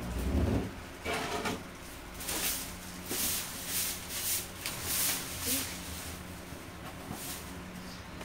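Crinkling and rustling of a plastic-wrapped coil of linked firecrackers being unrolled and handled by hand: a string of short crackly swishes, about one every half second to a second, dying away near the end.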